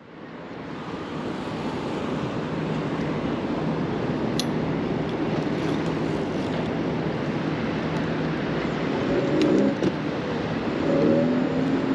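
Steady wind and road noise on a handlebar-mounted camera riding an electric bike through city traffic, with a couple of short pitched sounds about nine and eleven seconds in.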